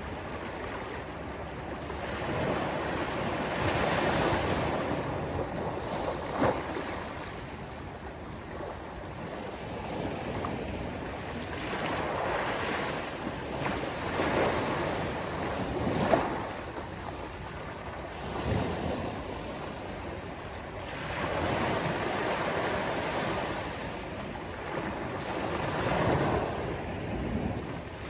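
Sea waves breaking and washing up on a beach, the surf swelling and fading every few seconds, with a couple of sharper splashes.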